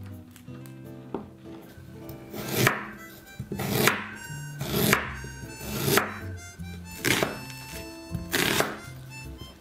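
Chef's knife slicing through fresh ginger and onion onto a wooden cutting board, a crisp cut about once a second, over background music.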